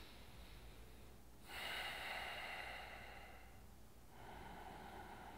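A man breathing audibly while holding a yoga bridge pose: a longer breath starting about a second and a half in, then a softer one about four seconds in.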